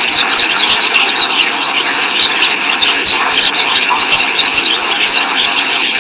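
Computer-generated sonification of a live Twitter stream of tweets about Apple, built in Node-RED: a dense, steady hiss full of rapid clicks and crackles.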